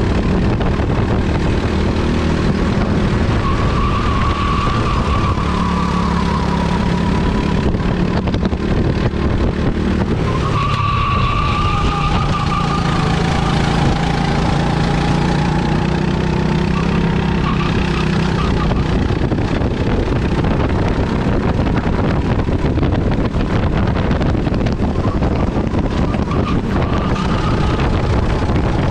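A kart engine is running hard at full throttle, recorded from onboard. Its pitch dips and climbs again several times as the kart brakes and accelerates through the corners of the lap.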